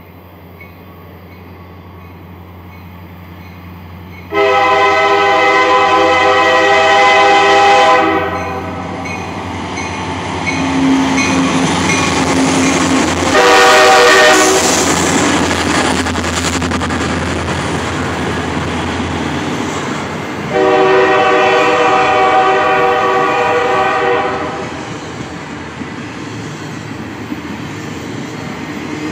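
Freight train passing, its wheels clattering over the rails above a steady low rumble, while a locomotive air horn sounds three chord blasts: long, short, long.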